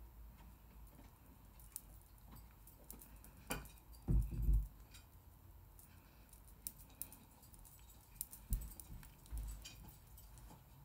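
Faint, scattered ticks and soft taps of a makeup sponge being dabbed and swiped over the face, with a pair of dull low thumps about four seconds in.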